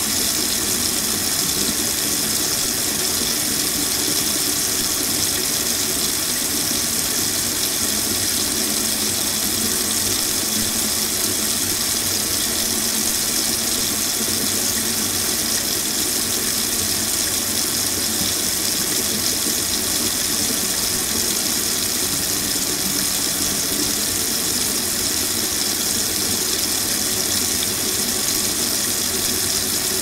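Kitchen sink faucet running steadily, water pouring into the sink with an even hiss that doesn't change.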